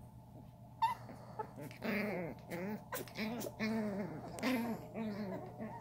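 Puppies play-fighting, giving a quick run of short, whiny growls and yips that start about two seconds in. A sharp click comes just before them.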